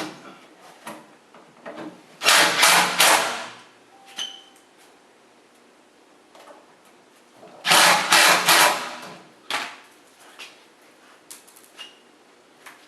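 Power screwdriver driving two screws through the fabric side panel, each run lasting about a second, the first about two seconds in and the second near eight seconds, with light handling clicks between.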